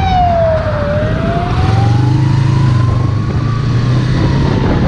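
Police siren wailing in a slow wail, its pitch falling, rising over a couple of seconds, then falling again. Under it, a motor vehicle engine drones steadily and picks up a little about a second and a half in.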